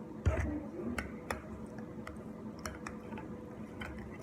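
Scattered light clicks and taps from handling a plastic bottle of contact lens solution over the slime bowl, with a dull thump about a quarter-second in.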